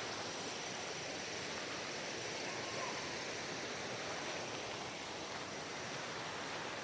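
Steady rushing of a valley stream, an even wash of water noise with no distinct events.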